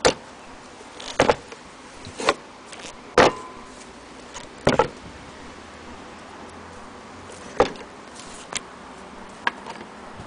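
Irregular sharp clicks and knocks, about eight spread over ten seconds, from an antique Willcox & Gibbs sewing machine's metal parts being handled.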